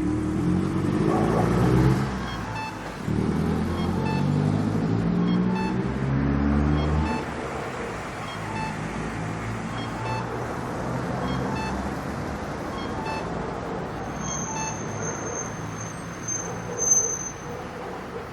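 Pedestrian crossing signal at a traffic light beeping steadily, about one short beep every second and a half, over street traffic. For the first several seconds a vehicle's engine is running loudly, its pitch rising and falling as it pulls away. Near the end a thin high tone sounds for a few seconds.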